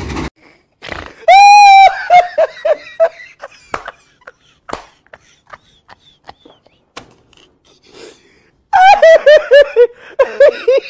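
A man laughing loudly: a long high whoop followed by a few quick "ha" bursts, then, about nine seconds in, a long run of rapid "ha-ha-ha" bursts that falls in pitch. Scattered light clicks come between the two laughs.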